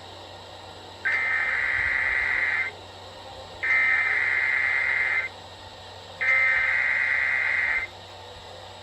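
Emergency Alert System test header: three identical bursts of SAME data tones, each a shrill electronic squawk about one and a half seconds long, with about a second's pause between them. A faint steady hum runs underneath.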